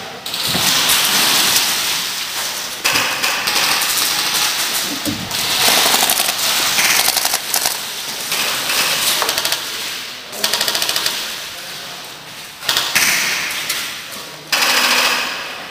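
Airsoft guns firing full-auto in long rapid bursts, one after another with short gaps between.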